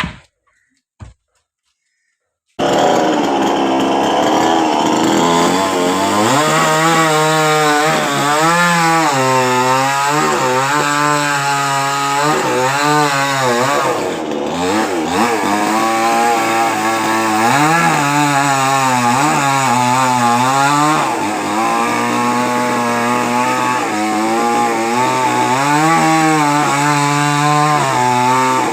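Two short clicks, then a chainsaw starts suddenly about two and a half seconds in and cuts into a coconut palm trunk. Its engine pitch rises and falls over and over as the chain bites and frees.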